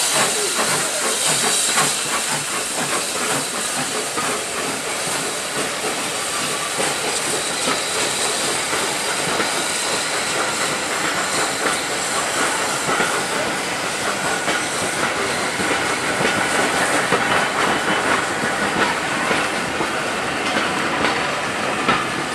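SE&CR tender steam locomotive pulling away with steam hissing, then a long train of vintage passenger carriages rolling past close by. The wheels click over the rail joints, more often near the end as the train picks up speed.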